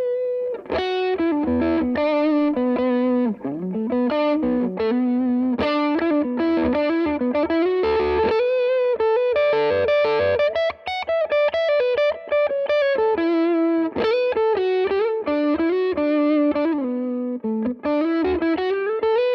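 Electric guitar played through a Tone King Gremlin tube amp's lead channel, close-miked, with a Klon-style overdrive. It plays a single-note lead line of overdriven notes with string bends and sustained held notes.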